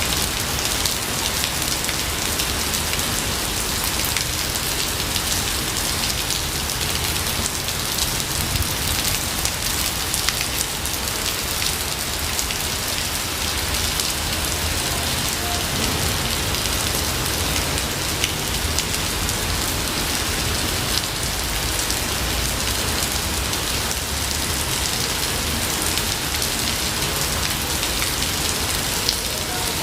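Steady rain falling in a forest, an even wash of noise with individual close drops ticking through it.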